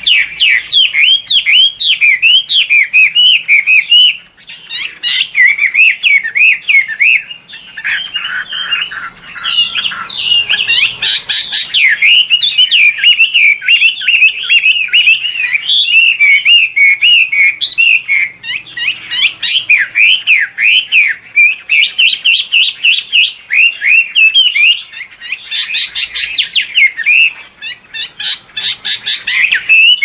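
Chinese hwamei singing loudly and without pause: a fast, varied song of sliding whistled notes, breaking into runs of rapid repeated notes near the end.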